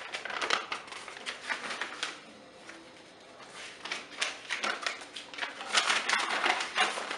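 Packaging being handled and opened by hand: crinkling and rustling in two spells, with a short lull between them and the second spell louder.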